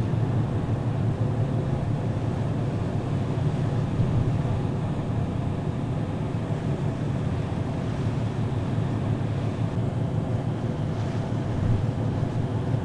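Steady low drone of the ferry Aogashima Maru's engines, with wind noise on the microphone.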